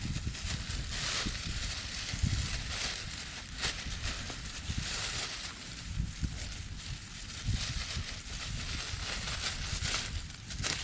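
Strong wind gusting through forest trees, a hiss that swells and fades every second or two, over a low rumble of wind on the microphone, with a few scattered clicks.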